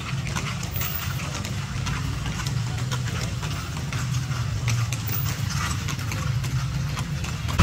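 Horse hooves clip-clopping in an uneven patter over the steady low hum of an idling engine.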